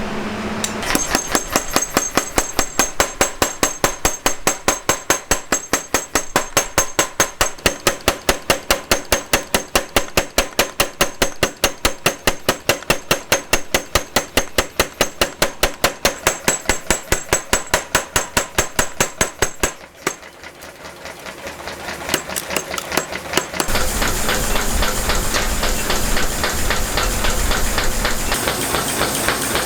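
Rapid, evenly spaced hammer blows on steel during forging, about four or five strikes a second, stopping about 20 seconds in. A few seconds later a steady rushing mechanical noise starts up.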